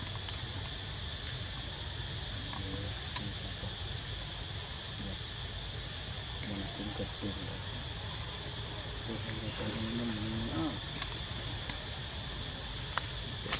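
Insects buzzing: a constant high-pitched drone, with a second, slightly lower insect trill that swells and fades every couple of seconds.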